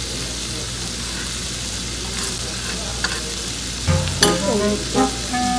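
Pork belly sizzling on a hot grill plate, a steady fizzing hiss. About four seconds in, background music with held notes comes in over it.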